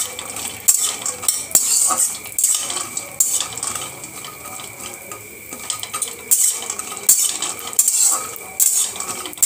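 Metal spatula scraping and stirring cashews around a kadhai as they fry in butter, the nuts clattering against the pan in irregular strokes. The strokes ease off for a couple of seconds midway.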